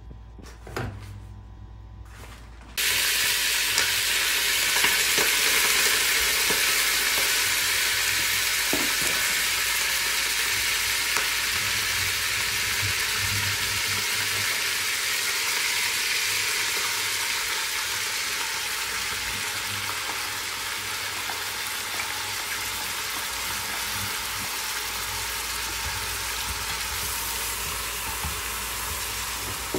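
Pieces of meat sizzling in hot oil in a stainless-steel pot. The sizzle starts suddenly about three seconds in and slowly gets quieter, with a wooden spoon stirring near the end.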